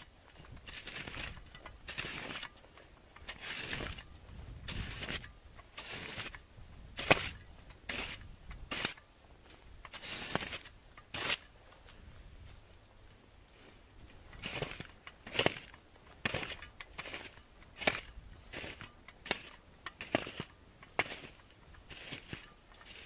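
Avalanche shovel scraping and scooping snow in short strokes, roughly one a second, with a few seconds' pause around the middle. A low wind rumble runs underneath.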